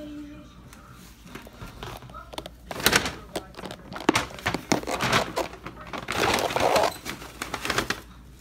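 Clear plastic snap-on lid of a takeout container being pried open by hand: sharp clicks and pops with crackling plastic, starting about three seconds in and loudest near the end as the lid comes free.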